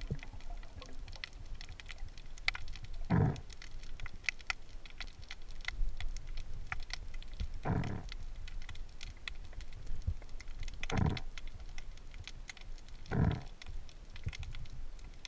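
Underwater sound picked up by a camera in its housing: a constant fine crackle of scattered clicks, with four louder, dull swishes a few seconds apart.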